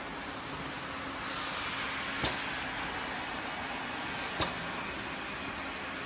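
Perfume filling and crimping line running, with a steady machine hum and hiss. Two sharp clicks come about two seconds apart, a couple of seconds in and again near four and a half seconds.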